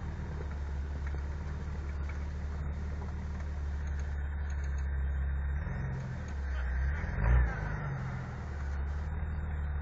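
Lifted off-road 4x4's engine running at low revs as it crawls through snow, with a brief rise in revs about seven seconds in before it settles back to a steady drone.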